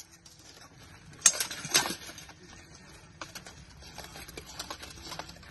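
Armoured sword fighting: two sharp clashes of weapon blows against armour or blade, a little over a second in and again half a second later, then lighter scattered clanks of plate armour as the fighters move.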